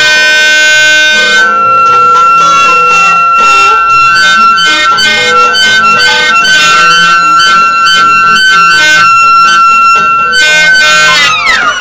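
Electronic tones from a Deerhorn synthesizer circuit, played through a multi-layer piezo speaker that is only taped to a Paulownia wood board, so it buzzes against the wood. The tones are simple and unmodulated, with several steady pitches held together that change every few seconds. Near the end they glide steeply downward.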